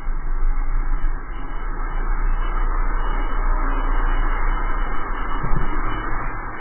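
Steady rush of wind on the microphone mixed with the rolling noise of a drift trike's wheels on asphalt as it coasts fast downhill.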